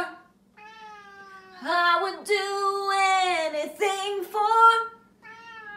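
Siamese cat meowing in a run of five or six long, drawn-out calls, the first one quieter and the rest louder.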